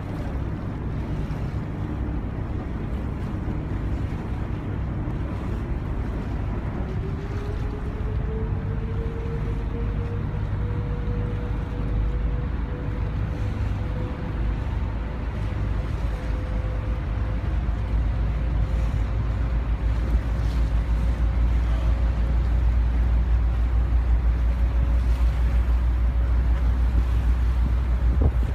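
Motorboat under way: a steady low rumble from the motor with water and wind noise over it. About seven seconds in, a whine rises in pitch and then holds steady. The rumble grows louder over the last ten seconds.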